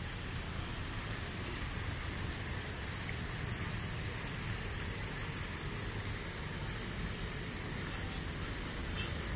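Ornamental fountain: small water jets splashing back into a pool and water spilling over a stone ledge in a thin cascade, a steady, even splashing hiss.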